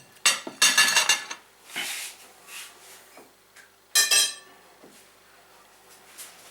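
Cutlery and crockery clattering: a quick run of ringing clinks in the first second or so, a short scrape, and another ringing clink about four seconds in.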